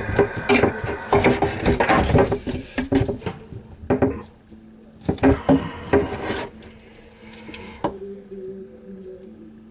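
White PVC drain fittings being rummaged for and picked up by hand, plastic knocking and clacking in quick runs, busiest in the first four seconds and again around five to six seconds in, with one last click near eight seconds.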